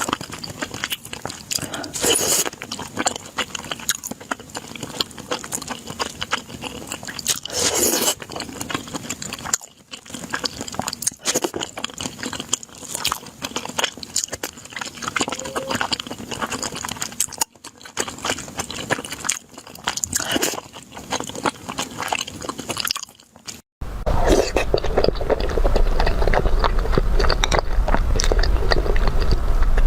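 Close-miked eating: biting into and chewing crunchy food, with a run of sharp crunches and wet chewing. About 24 s in the sound cuts to a louder stretch of chewing with a steady low hum underneath.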